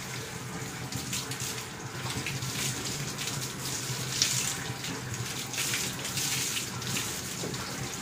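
Water from a garden hose pouring and splashing onto a washed animal's wet coat and the concrete floor, a steady rush broken by uneven splashes.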